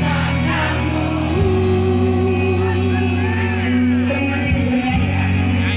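Live rock band music over a stadium PA, with a woman's lead vocal. About a second and a half in she holds one long note with vibrato for about two seconds over a steady bass and band backing.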